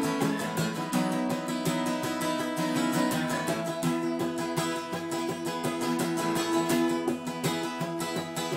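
Two acoustic guitars strummed together in a steady rhythm, the chords changing every couple of seconds.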